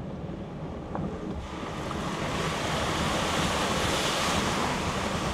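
A Jeep ploughing through a muddy trail puddle: its engine runs low underneath while, from about a second and a half in, a rush of splashing water swells as the tyres push through, loudest around four seconds in.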